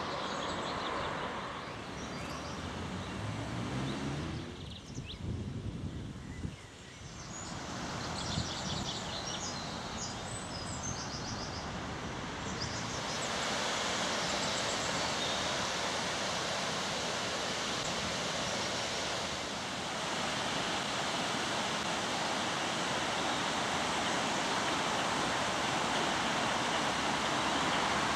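Steady outdoor rushing noise with no speech. It dips a little a few seconds in, with a few faint high chirps near the middle, then grows louder and stays even from about halfway through.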